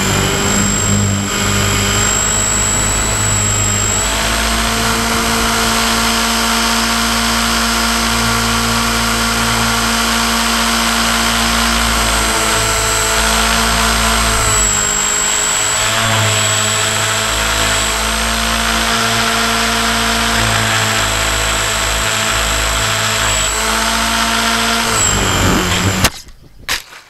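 Model airplane's motor and propeller heard from an onboard camera, running steadily with small shifts in pitch. About 26 seconds in it stops abruptly with a sharp knock as the plane crashes into the grass, followed by a second knock.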